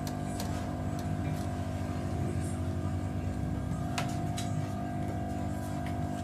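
Hot-air rework blower running steadily with a low whirring hum, used here to reflow solder joints on the circuit board. A sharp click about four seconds in.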